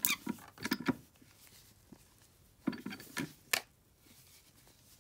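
Bench vise being screwed in to press a ball bearing into the big-end of an oilless air-compressor piston's connecting rod, using a socket on the outer race. Short creaks and clicks come in two bursts, one in the first second and another around three seconds in, as the bearing goes into the bore.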